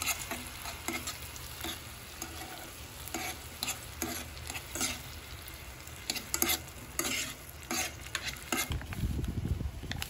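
A metal spoon stirring frozen mixed vegetables in a little water in a non-stick saucepan, scraping and clicking against the pan about once or twice a second, over a soft sizzle. Near the end a lower rustling noise takes over.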